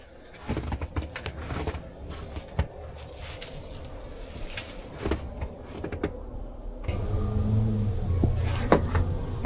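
Car engine running at low speed while a car is being parked, with scattered clicks and knocks. A steadier low hum takes over about two-thirds of the way in.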